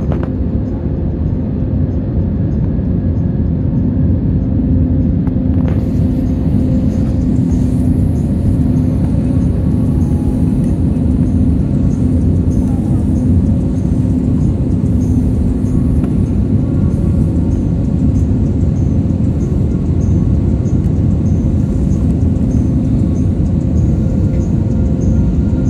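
Steady cabin noise of a jet airliner descending on approach, heard from inside the cabin: engine and airflow rumble with a steady low hum.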